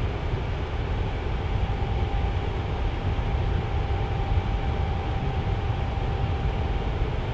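Tower fan running steadily: an even rush of air, heaviest in the deep low end, with a faint steady tone over it.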